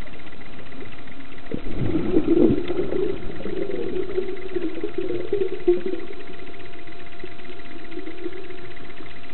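A steady, muffled motor hum heard underwater. A louder, rougher rumbling swells about a second and a half in and eases off after a few seconds.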